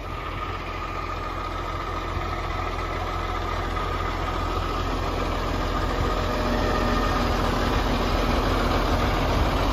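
Semi truck's diesel engine idling steadily, a low rumble with a thin steady whine over it, growing gradually louder as it is approached.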